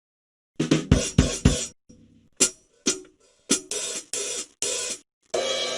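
Comedic drum-kit stings: a quick fill of four hard drum hits, then a few separate sharp snare and cymbal hits, and near the end a cymbal crash that rings out and slowly fades.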